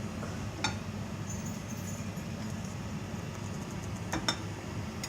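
A few drops of oil heating in a frying pan, a faint steady hiss with a few small pops about half a second in and again around four seconds in: the oil has just got hot enough to pour in the eggs.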